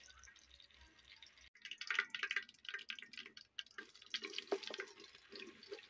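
Heating cooking oil spitting and crackling in a large aluminium pot, a quiet rapid patter of small pops that starts about a second and a half in.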